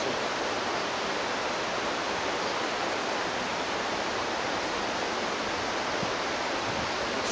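Steady rushing of a fast white-water mountain river: an even, unbroken hiss.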